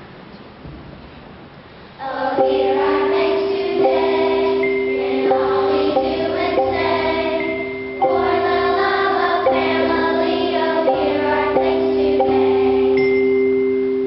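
Children's school ensemble starts playing about two seconds in: long held electric-keyboard notes under struck notes from wooden mallet instruments, with voices singing over them.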